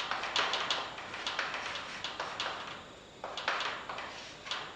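Chalk writing on a blackboard: a run of quick scratching strokes and taps as symbols are written, with a short pause about three seconds in.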